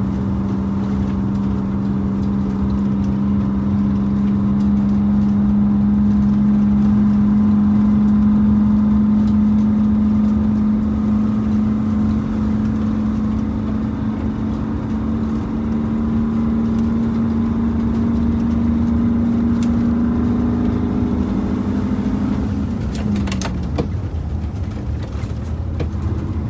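Vintage Silversides bus engine heard from the driver's seat while driving, a steady drone that slowly rises in pitch as the bus gathers speed. Near the end the pitch drops, and there are a few clicks.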